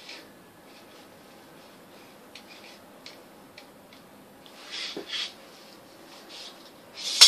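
A person blowing short puffs of breath on something held at the tip of a long metal skewer. The puffs are soft at first, with a louder pair about five seconds in and a sharper one at the very end.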